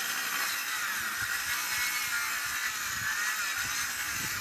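Makita electric circular saw running and cutting into a dry eucalyptus stump at ground level, its whine wavering in pitch as the blade bogs down in the wood and recovers.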